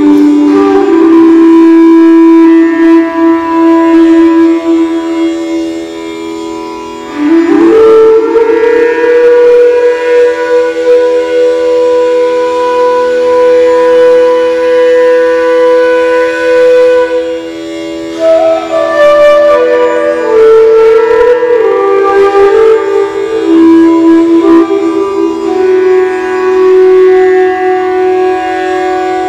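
Bansuri (Indian bamboo flute) improvising slowly in long held notes, with a slide up in pitch about seven seconds in. Inside an empty stone water tank, each note lingers on under the next.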